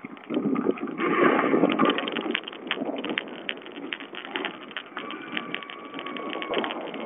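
Off-road motorcycle riding on a rough dusty trail, heard through a wrist-watch camera's low-quality microphone: wind noise and a stream of sharp clicks and rattles over the engine.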